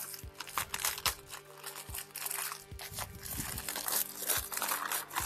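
Wrapper of a packet of biscuits crinkling and crackling as it is torn open by hand, a dense irregular run of crackles.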